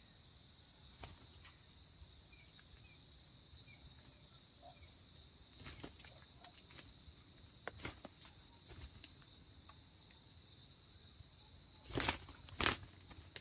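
Forest ambience: a steady high-pitched insect drone with scattered faint clicks and rustles, then two loud, brief rustling bursts near the end.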